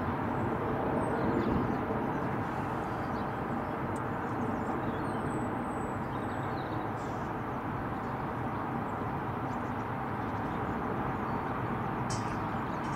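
Airbus A350-941 on approach with its landing gear down, its Rolls-Royce Trent XWB engines heard as a steady jet rumble that fades slightly as the aircraft moves away. A few faint high chirps now and then.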